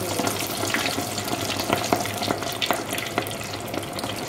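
Floured chicken deep-frying in a pot of hot oil: a steady bubbling sizzle with scattered crackles and pops.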